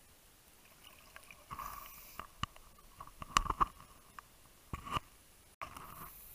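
Muffled bubbling and gurgling of a diver's exhaled air, heard underwater through the camera, coming in several irregular bursts with a few sharp clicks among them.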